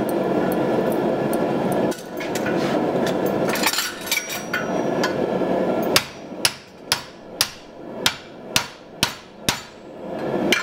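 Hand hammer striking a steel drift in the eye of a hot steel hatchet head on a swage block, drifting the eye to size. For about the first six seconds the blows are packed close under a steady loud rushing noise. Then come about nine separate ringing strikes, roughly two a second.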